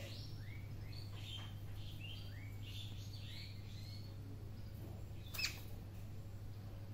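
Small caged bird giving a quick run of short, high, upward-sliding chirps, which stop after about three and a half seconds. A single sharp click comes about five and a half seconds in, over a steady low hum.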